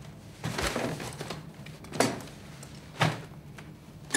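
A leather bag being handled and lifted from a desk: rustling with three short sharp clicks, about a second apart.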